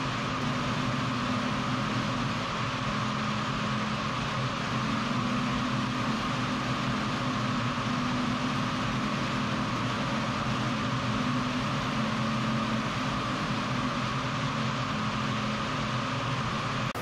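Steady drone of factory machinery in a woven polypropylene bag plant: a constant low hum and a higher whine over an even mechanical noise.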